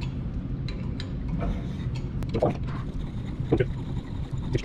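King pin reamer turned by hand, shaving out a king pin bushing in a 1949 Ford F1's front steering knuckle on a light cleanup pass to size it for the pin: metal scraping and clicking in short strokes as the tool turns, loudest about two and a half and three and a half seconds in.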